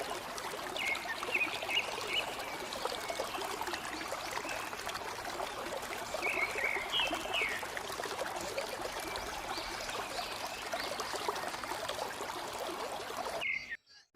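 River water flowing over rocks, a steady rushing hiss, with a few short high chirps about a second in and again around six to seven seconds. The sound cuts off abruptly just before the end.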